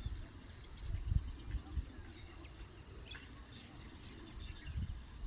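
Steady high-pitched chorus of crickets trilling in an even pulse, with a few faint short bird chirps and low rumbles on the microphone.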